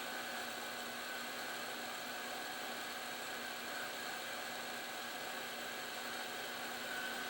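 Heat gun blowing hot air at medium airflow, a steady hiss with a faint constant whine, heating an LED on a TV backlight strip to desolder it.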